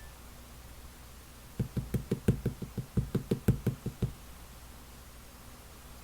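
A quick run of about fifteen dull, low knocks, roughly six a second, lasting about two and a half seconds.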